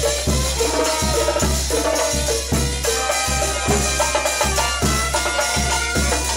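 Live dance band with brass (trombone and saxophone) and drum kit playing a song, with a steady low beat about twice a second under sustained horn lines.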